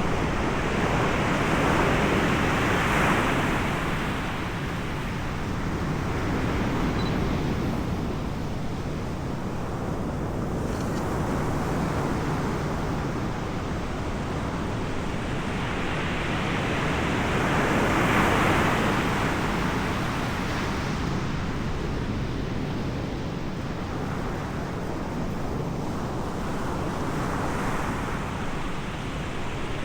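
Ocean waves breaking on the shore, a steady rush that swells as a wave breaks about three seconds in, again a little past halfway, and builds once more near the end.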